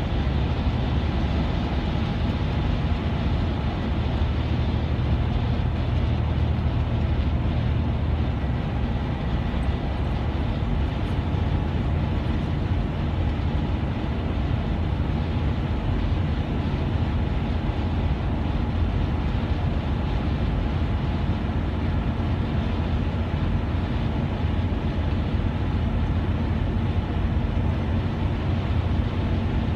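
Steady engine and tyre noise of a vehicle cruising at highway speed, heard from inside the cabin as an even low rumble.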